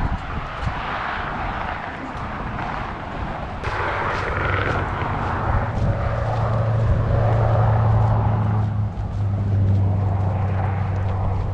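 A motor vehicle passing, with a steady engine drone that drops in pitch about nine seconds in as it goes by. Wind noise on the microphone runs underneath.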